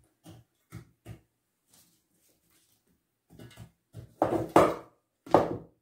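Cherry tomatoes being dropped by hand into an enamel casserole dish: a few light knocks in the first second, then louder knocks and thuds near the end.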